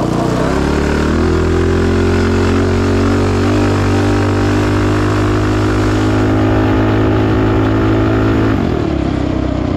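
Predator 212-based 223cc stroker single-cylinder four-stroke engine on a minibike, revving up over the first second, then holding high, steady revs under load as the bike is ridden. The revs drop sharply shortly before the end as the throttle is let off.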